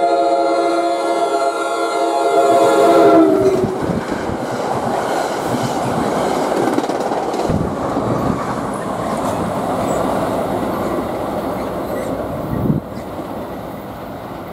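NJ Transit passenger train's locomotive horn sounding one long multi-tone chord, cutting off about three and a half seconds in. The train then passes close by at speed with a loud rush of wheel and rail noise, which drops away shortly before the end.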